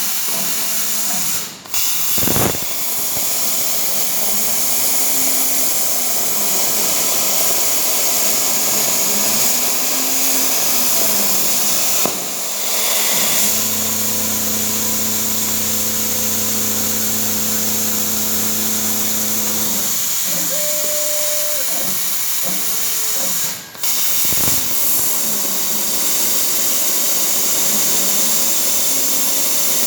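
Air plasma cutter running: the steady hiss of the plasma arc cutting holes in steel plate, cutting out briefly twice. A low droning hum joins for several seconds in the middle.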